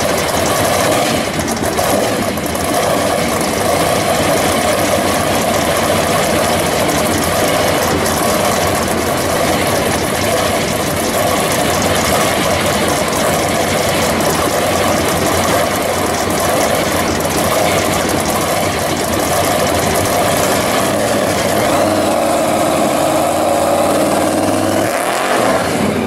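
Supercharged engine of a custom 1951 Chevy pickup running loudly at idle, then revving up with rising pitch near the end as the truck pulls away.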